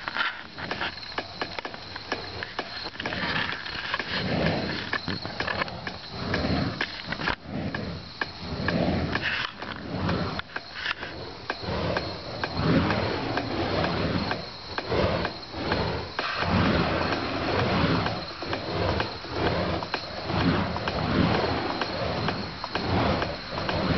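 Burning fire-spinning puppy hammers whooshing through the air as they are spun, a rough rush of flame and air that swells and fades about once a second.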